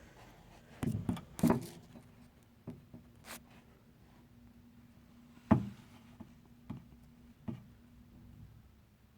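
A string of sharp knocks and taps from objects being handled, about nine in all with the loudest around one and a half and five and a half seconds in, over a faint steady hum.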